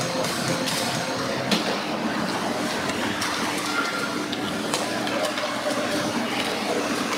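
Ice hockey play in an indoor rink: skates scraping the ice and scattered sharp clicks of sticks and puck, with one louder crack about one and a half seconds in, over a steady echoing arena hum.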